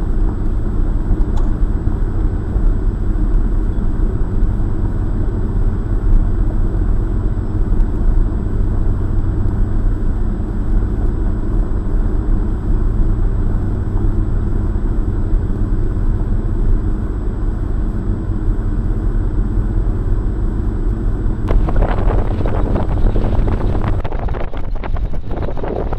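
Car driving on a gravel road, heard from inside the cabin: a steady low rumble of engine and tyres on gravel. About 21 seconds in a broader rushing noise sets in, and near the end it gives way to wind on the microphone.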